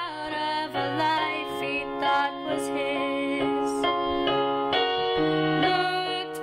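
A slow song: a female voice singing a held, wavering melody over piano accompaniment.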